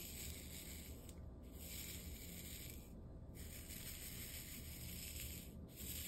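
Many small plastic diamond-painting drills rattling and skittering in a clear plastic tray as it is shaken to spread them out, in bouts with short pauses between.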